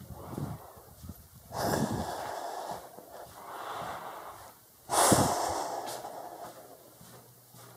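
A person breathing heavily close to the microphone, several separate noisy breaths, the loudest starting abruptly about five seconds in.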